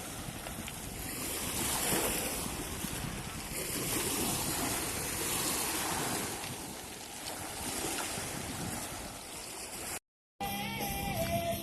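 Sea waves washing onto a stony shore, swelling and easing, with wind buffeting the microphone. Near the end it cuts off to a brief silence and music begins.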